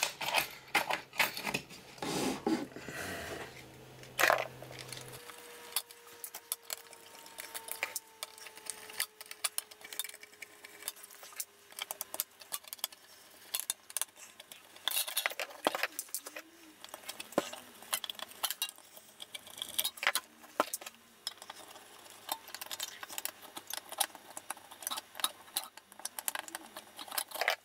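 Irregular light metallic clicks and clinks: a screwdriver working the small slotted screws out of the metal bottom cover of an avionics box, and the loose screws and cover being handled.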